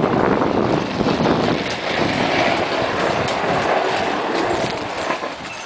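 Loud, steady rushing noise of wind and handling buffeting the camera microphone outdoors, with a few faint clicks, fading somewhat near the end.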